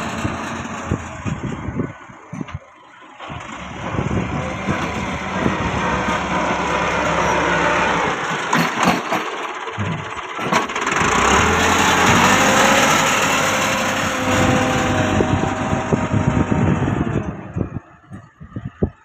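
Farm tractor's diesel engine running under load while pushing soil with its front dozer blade, its note rising and falling with the work. The sound drops away briefly about two seconds in and again near the end.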